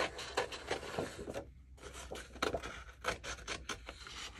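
A sheet of patterned designer paper rustling and crackling as it is handled and flexed: a run of irregular short crackles with a brief lull about a second and a half in.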